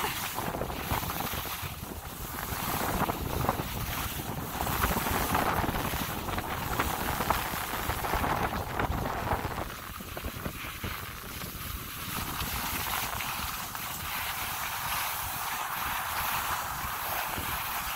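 Skis sliding and scraping over snow during a descent, with wind rushing over the phone's microphone.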